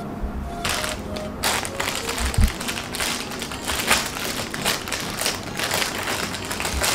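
Clear plastic bag crinkling and rustling in the hands as it is handled and opened, starting about half a second in, over light background music.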